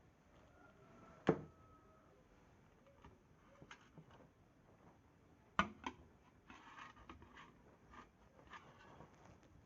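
A few sharp knocks of kitchen utensils: one about a second in that rings briefly with a thin tone, two close together near the middle, then a short rustle and a few faint clicks.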